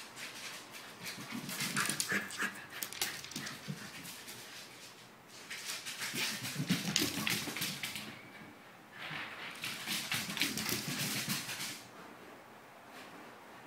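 Pembroke Welsh corgi running through the rooms on hardwood floor: rapid clicking and pattering of claws and paws in three bursts that come and go as the dog races past, quieter near the end.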